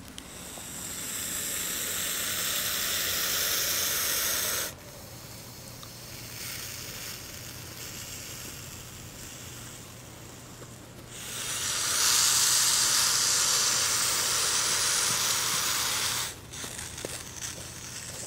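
Hognose snake hissing defensively with its neck flattened: two long hisses, the first building up and stopping abruptly about four and a half seconds in, the second louder, starting about eleven seconds in and lasting about five seconds.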